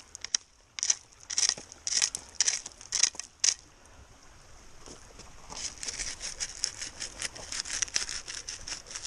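A plastic hand scoop scraping and digging into creek gravel and soil: sharp scrapes about twice a second, a short lull, then a quicker run of scrapes from about halfway through.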